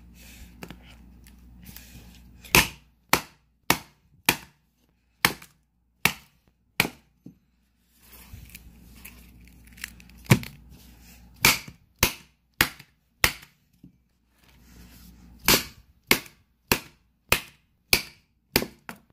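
Repeated sharp hammer blows on an iPhone 7's aluminium body and shattered glass screen, about twenty strikes in quick runs with a break of a few seconds partway through.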